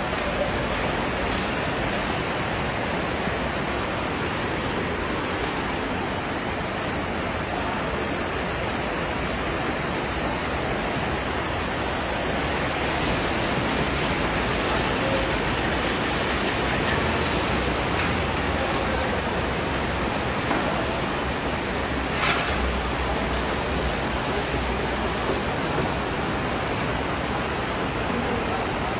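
Steady sizzling and bubbling from a huge cauldron of plov cooking over the fire, with one short clink past the middle.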